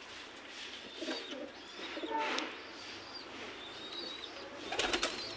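Domestic pigeons cooing, with a few sharp knocks near the end.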